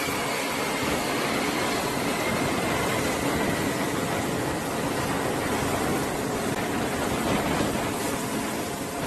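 Steady engine roar, with a faint high whine gliding slightly down in pitch over the first few seconds.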